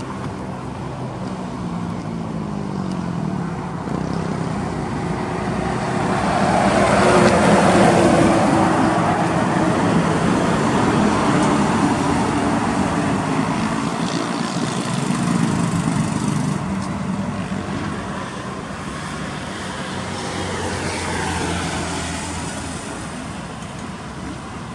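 Highway traffic: heavy trucks and cars driving past, engine note and tyre noise swelling and fading as each passes, the loudest pass-by about seven to eight seconds in.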